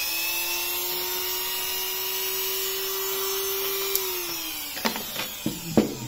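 Handheld rotary tool with a cut-off disc running at speed with a steady high whine, then switched off about four seconds in and spinning down with falling pitch. A few sharp clicks and knocks follow near the end.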